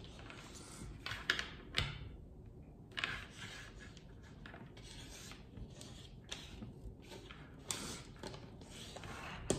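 Wooden Scrabble letter tiles being moved about by hand on a wooden tabletop: scattered light clicks as tiles knock and are set down, with a few short sliding scrapes.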